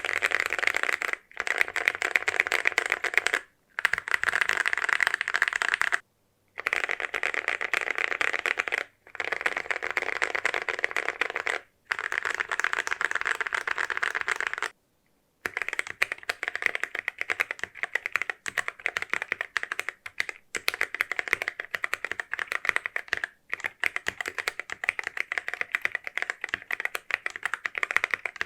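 Mechanical keyboard fitted with Akko CS Jelly Purple tactile switches. It starts with about six bursts of fingers rolled rapidly across the keys, each a couple of seconds of dense clacking with short pauses between. About halfway through it turns to steady, fast typing.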